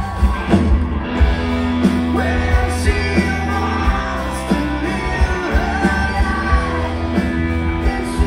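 Live rock band music with a steady drum beat and singing.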